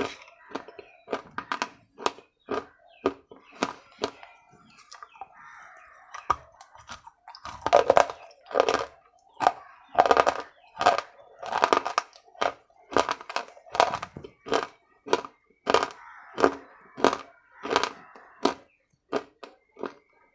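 Close crunching and chewing of hard, brittle pieces, a sharp crunch about twice a second throughout, loudest between about 7 and 13 seconds in.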